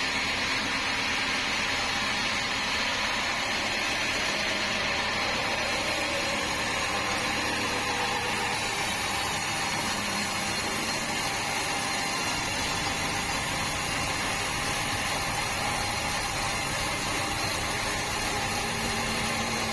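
Band sawmill running, a steady, unbroken machine noise with a constant hum.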